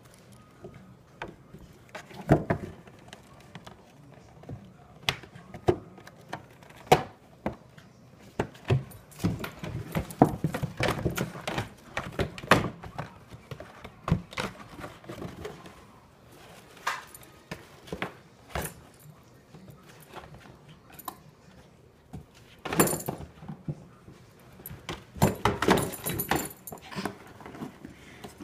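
Cardboard 12-pack soda box knocked about and shoved by a dog trying to get at a treat inside: irregular thunks and knocks, with bursts of scraping and rustling cardboard.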